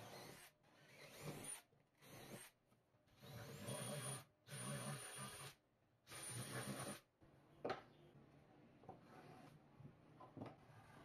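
Cordless drill boring holes through film-faced plywood, running in about six short bursts that start and stop. After the drilling comes one sharp click, then a few light taps.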